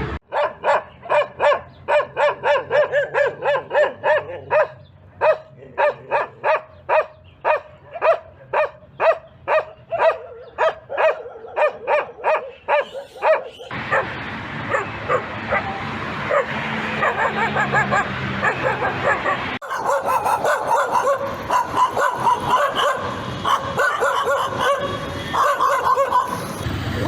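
Dogs barking: first a dog's quick, evenly repeated barks, about two to three a second. About halfway through, the sound cuts abruptly to denser, overlapping barking and yelping, and it cuts again a few seconds later.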